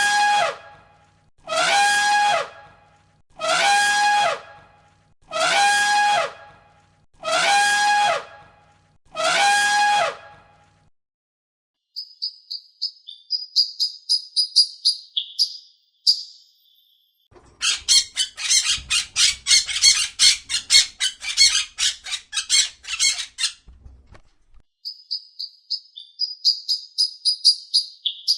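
Seven loud pitched animal calls repeated about every second and a half, each sliding slightly down in pitch, then birds chirping and squawking: high chirps, a dense burst of rapid squawks in the middle of the second half, and more chirps near the end.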